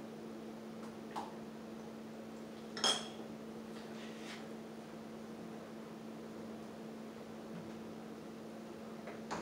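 Kitchen utensils knocking and clinking against stainless steel pots while a pot is stirred, with one sharp ringing clink about three seconds in and a few lighter knocks, over a steady hum.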